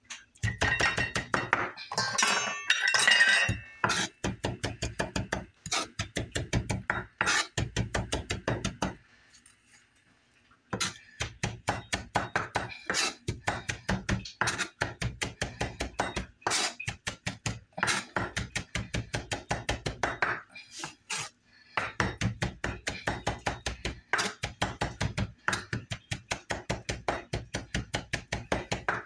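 Chef's knife rock-chopping fresh parsley on a bamboo cutting board: quick knocks of the blade on the wood, about four a second. The chopping pauses briefly about nine seconds in and again near twenty-one seconds.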